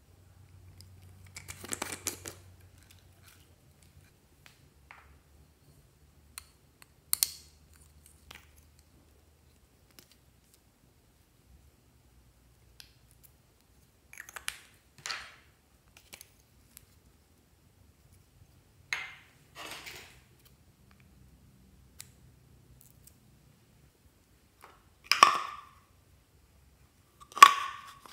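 Small plastic containers being handled and opened: a short rattle of small pieces being shaken about two seconds in, then caps and lids clicking and popping off every few seconds, the loudest two near the end.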